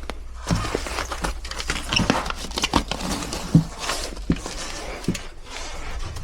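Irregular clicks, knocks and crinkling of hands working on sheet-metal ductwork.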